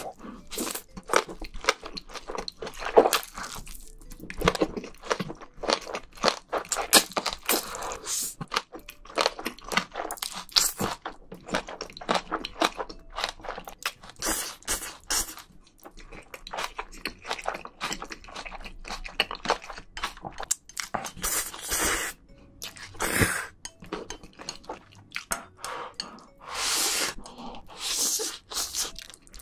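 Close-miked slurping and chewing of jjajangmyeon, black bean sauce noodles, eaten with chopsticks: many small wet mouth clicks and chewing sounds, with several longer slurps of noodles drawn in, most of them in the second half.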